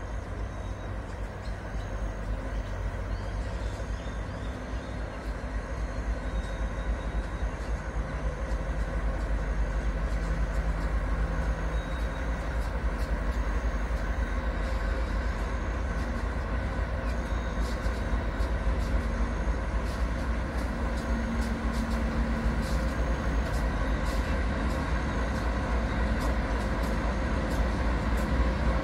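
Three diesel locomotives hauling a freight train, their engines rumbling low and steadily, growing gradually louder as the train approaches.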